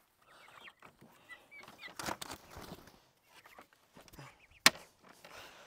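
Turkeys giving short high peeping chirps, with rustling and knocking as birds and crates are handled. A single sharp click, the loudest sound, comes near the end.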